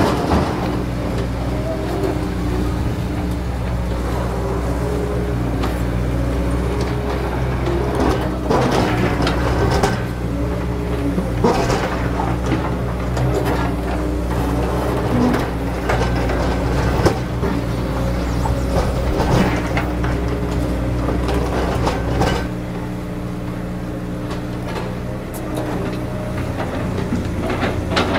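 Komatsu PC200 hydraulic excavator's diesel engine running under load as it digs, with short knocks and clanks now and then. The engine sound drops lower about 22 seconds in.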